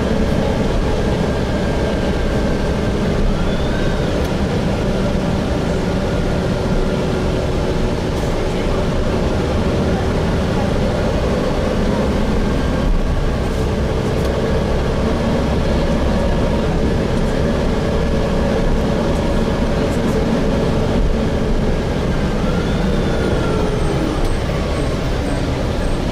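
Interior of a Gillig Phantom transit bus with a Voith transmission running steadily, with constant engine and road noise and faint drivetrain tones that drift slowly up and down in pitch.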